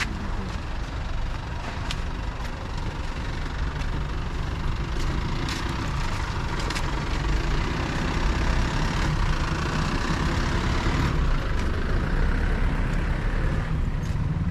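An engine running steadily, a low continuous rumble.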